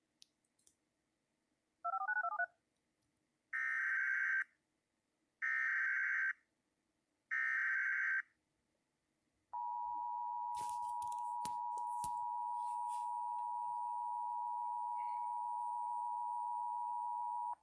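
Emergency Alert System tones. A brief warbling tone burst comes first, then three bursts of about a second each of SAME digital header data, then the two-tone EAS attention signal (853 and 960 Hz sounded together) held steady for about eight seconds. A few clicks and crackles sit over the first seconds of the attention signal.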